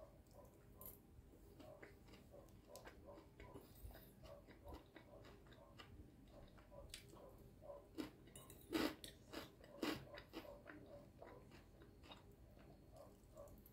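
Quiet chewing of a chicken salad with croutons, with irregular small crunches and two louder crunches about nine and ten seconds in.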